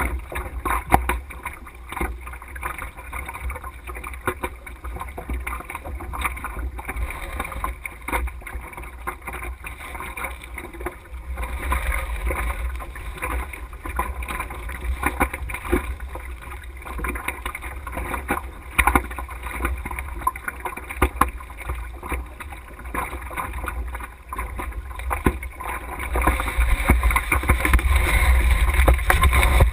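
Wind rumble on a mast-mounted camera above a small sailing dinghy, with frequent short knocks and rattles from the mast and rigging. The sound grows louder near the end.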